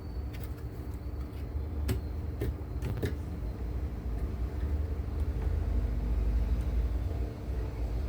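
Steady low hum under a few sharp, light clicks in the first three seconds, from the replacement laptop DC jack and small tools being handled as the jack is set into place on the motherboard.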